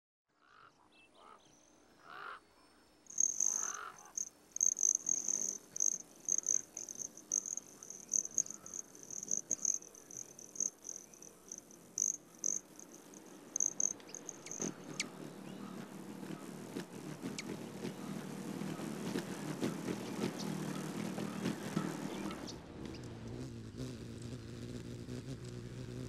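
A high, rapidly pulsing insect chirr runs for about ten seconds and fades into outdoor background noise. About three-quarters of the way through, a steady low hum sets in, the wings of a hummingbird hovering at a feeder.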